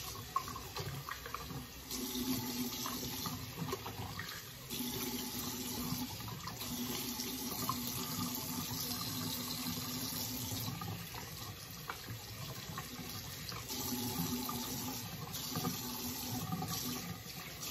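Tap water running into a bathroom sink while a charcoal face mask is rinsed off, the water sound rising and falling every few seconds as the face is washed.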